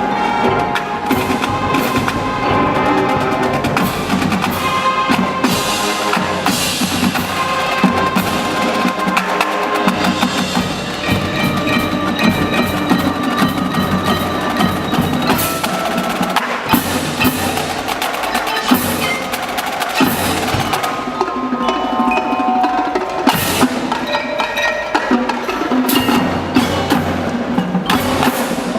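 Marching band playing, percussion-heavy: mallet percussion such as bells and marimba ringing over drum strikes and rolls, with sustained pitched notes underneath.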